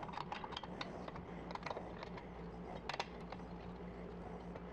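Light, irregular clicks and taps of screws and metal bracket parts being handled and tightened by hand, with a faint steady low hum underneath.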